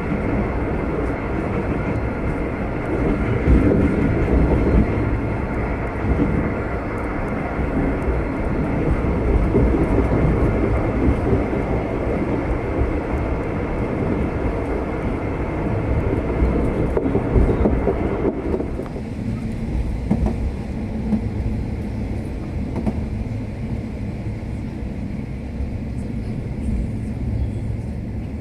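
Locomotive-hauled V/Line passenger train running along the line, heard from on board as a steady rumble of wheels on rail. About two-thirds of the way through, the higher part of the noise falls away, leaving a lower, quieter rumble.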